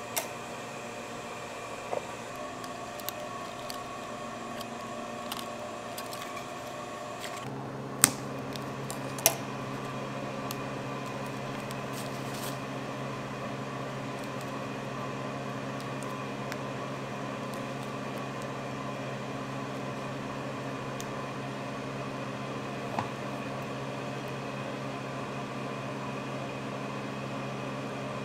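Steady hum of running kitchen machinery. About seven seconds in it changes to a lower, slightly louder hum. A few sharp clicks stand over it, the two loudest about eight and nine seconds in.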